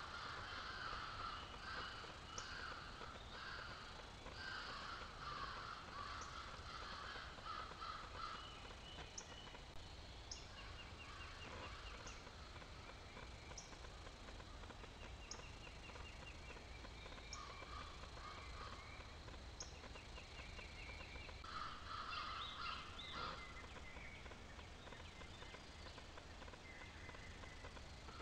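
Crows cawing, in a run of harsh calls over the first several seconds and again about 22 seconds in. Between them, songbirds call: a rapid trill repeated several times and short high chips about once a second.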